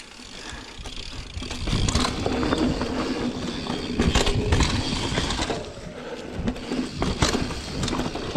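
Mountain bike ridden fast over rough dirt trail: tyres rumbling and the bike rattling over bumps, growing loud about two seconds in, with several sharp knocks.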